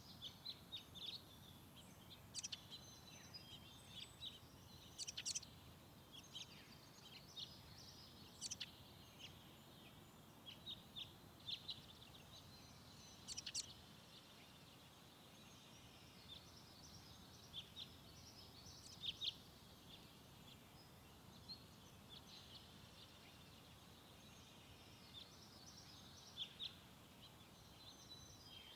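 Small birds chirping: many short, high chirps and twitters, scattered irregularly over a faint steady hiss.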